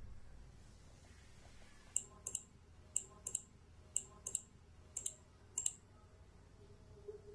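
Computer mouse clicking: sharp short clicks, mostly in pairs, about once a second for a few seconds.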